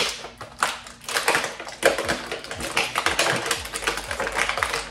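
Clear plastic action-figure packaging being handled and pulled apart, with rapid irregular crinkling, crackling and clicking.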